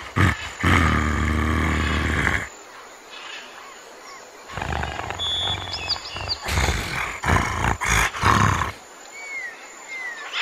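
Big cat roaring in two loud bouts, the first a long held roar and the second more broken up. A few bird chirps come in near the end.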